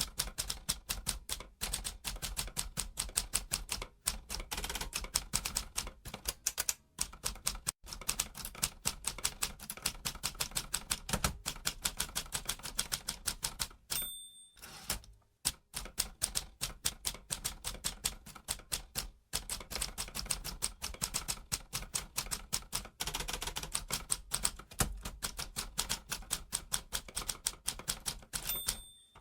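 Manual typewriter typed at a quick, uneven pace: several key strikes a second, with short pauses between runs. Twice, about halfway and again near the end, a short bell ring sounds, the margin bell at the end of a line, followed by a brief pause.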